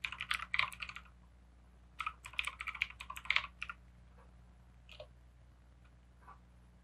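Computer keyboard typing: a quick run of keystrokes in the first second, a second run from about two seconds to nearly four seconds in, then a couple of faint single key clicks.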